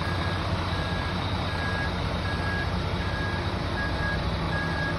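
VDL Futura coach's diesel engine idling steadily, with a high electronic warning beep repeating about once every 0.8 seconds.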